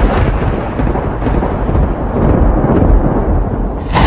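Thunder in a storm: a clap breaks out suddenly and rolls on as a long rumble.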